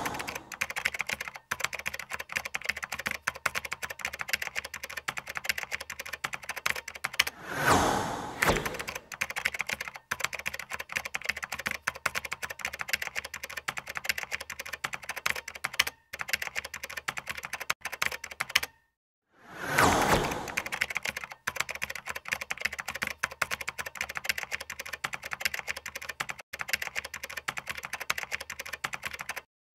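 Computer-keyboard typing sound effect: a rapid, continuous clatter of key clicks accompanying text being typed onto the screen. It is broken three times, near the start, about 8 seconds in and about 20 seconds in, by a louder sweeping whoosh.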